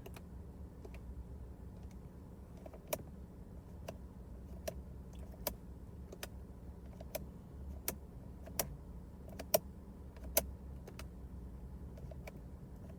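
Inside a Holden VF Commodore ute's cabin: a steady low hum with a series of light, sharp clicks, roughly one a second, from about three seconds in.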